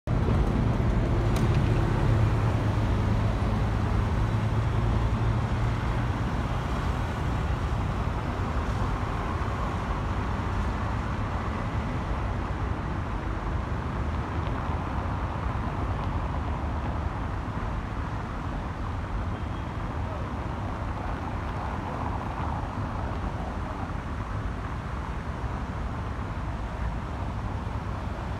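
City traffic ambience: a steady rumble of passing road vehicles, with a low engine hum that is loudest over the first several seconds and then eases off.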